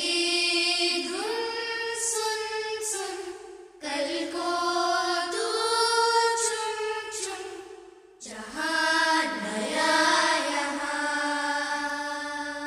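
Background music: a sung melody in long held notes that slide from pitch to pitch, in three phrases with short breaks between them.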